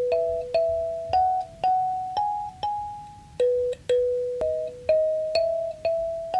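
Intro music: a simple keyboard melody of single notes, about two a second, climbing step by step, dropping back about halfway through and climbing again.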